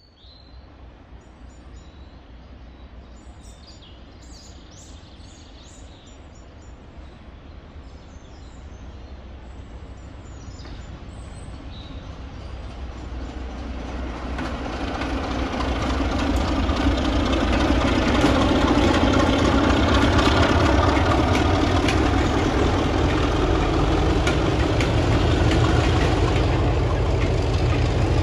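Class 33 diesel locomotive with its Sulzer eight-cylinder engine approaching with a passenger train, growing louder over several seconds from about twelve seconds in, then running loud and steady as it passes hauling its coaches. Birds chirp faintly before it draws near.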